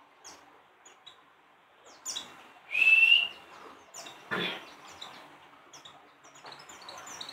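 White-eyes (pleci) calling with short high chirps, and one louder rising whistled note about three seconds in. A brief knock comes about halfway through.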